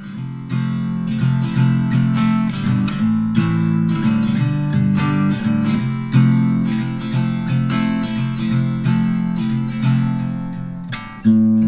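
Background music: a strummed acoustic guitar playing steadily.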